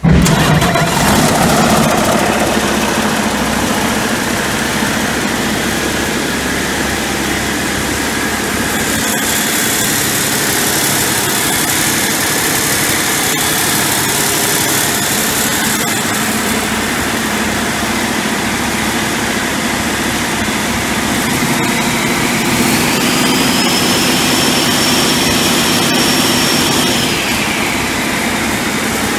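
Cummins ISX15 inline-six diesel firing up abruptly on a run stand and settling to a steady idle. About 22 seconds in it is revved up, with a high whine climbing with it, held for several seconds, then dropped back to idle. The seller rates the engine as having good cam and bearings.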